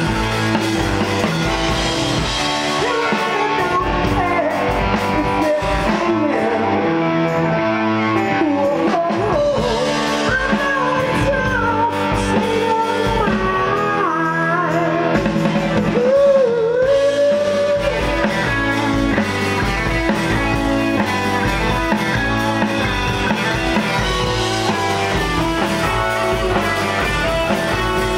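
Live rock band playing: electric guitar, drum kit and keyboards, with a singer's voice sliding in pitch over them through the first half or so.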